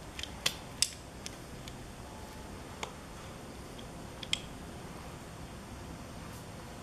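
Handling noise from the kit's cables and plastic wire connectors: a few light, sharp clicks and taps, bunched in the first second and again near the middle, over a steady low background hiss.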